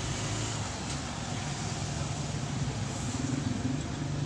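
A motor vehicle engine running at low revs, a steady low drone.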